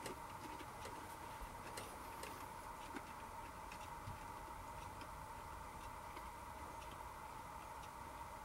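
Quiet room tone: a steady faint high hum with faint scattered clicks, about one every second, at uneven intervals.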